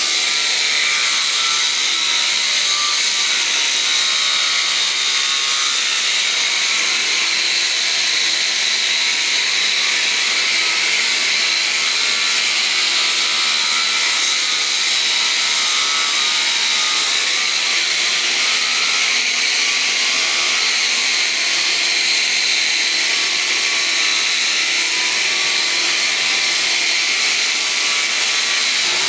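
Makita angle grinder running steadily while sanding marble skirting: a high-pitched whine over a dense hiss of abrasive on stone.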